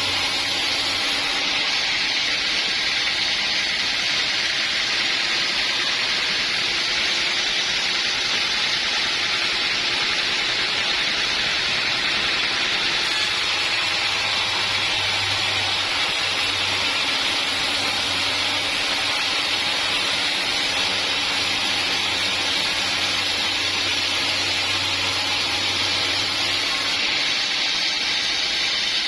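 Portable sawmill running steadily, giving an even hissing noise with a low motor hum that fades in and out.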